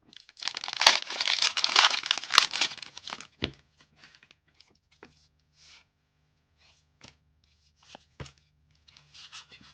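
A foil Pokémon TCG booster pack wrapper being torn open and crinkled for about three seconds. Then come a few faint scattered clicks, and a short crinkle near the end.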